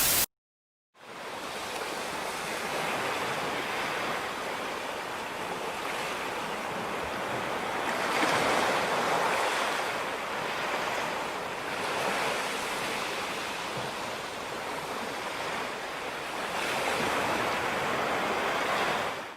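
A brief loud burst of noise, a second of silence, then a steady rushing noise with no tone in it that swells and eases every few seconds, like surf, and cuts off suddenly at the end.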